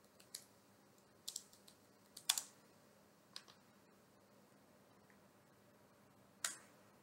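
Faint computer keyboard keystrokes, a few scattered clicks and small clusters of two or three keys, with one more click near the end.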